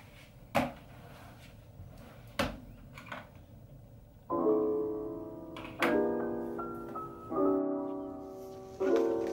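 Two sharp knocks in a quiet room, then background piano music starts about four seconds in with slow, held chords, a new chord about every second and a half.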